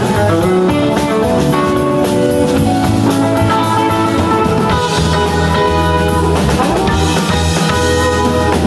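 Live rock band playing: electric guitar over keyboards and a drum kit, a steady full sound with no pauses.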